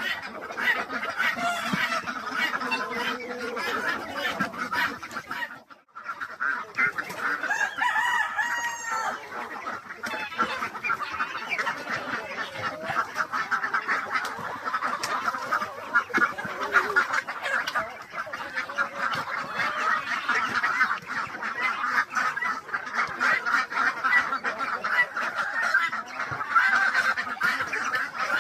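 A flock of chickens clucking and calling, many overlapping birds at once, with a brief gap about six seconds in.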